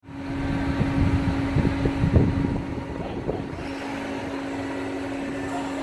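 Wheel loader's diesel engine running steadily with a constant hum, heard from inside a loader cab, with a few low knocks about two to three seconds in.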